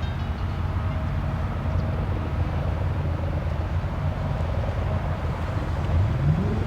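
Supercar V12 engine idling with a low, steady rumble, then revving up sharply near the end.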